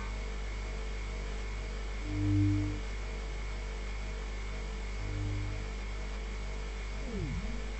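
Synthesized sound design: a steady electronic hum, with a soft low tone swelling about two seconds in and again more faintly around five seconds. Near the end come a few quick falling pitch sweeps.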